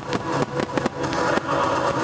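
Fireworks display: many shell bursts and crackles going off in quick, overlapping succession, with music playing underneath that grows louder about three quarters of the way in.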